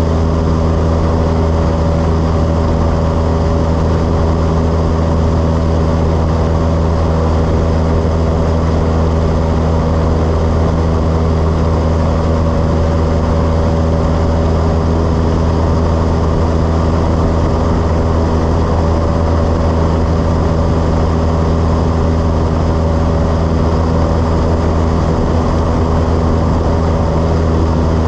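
Cessna 172's piston engine and propeller running at steady power, a constant loud drone with no change in pitch, heard in the climb-out after takeoff.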